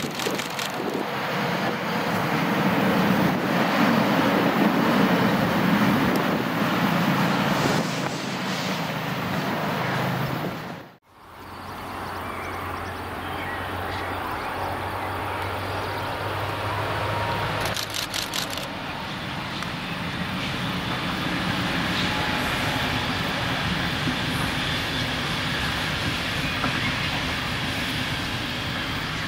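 BLS Re 420 electric locomotive hauling EW passenger coaches rolling past, a steady wheel-on-rail rumble with motor hum. It cuts off abruptly about 11 seconds in and gives way to a quieter, steady rolling rumble from an SBB Intercity train running along the line.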